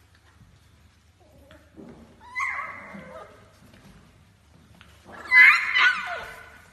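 Beagle puppy giving two high, wavering cries about three seconds apart, the second louder, each falling in pitch at the end.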